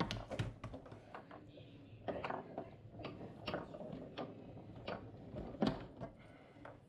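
Foosball table in play: a string of sharp, irregular clacks and knocks as the ball is struck by the rod men and the rods are worked, the loudest knock coming late on.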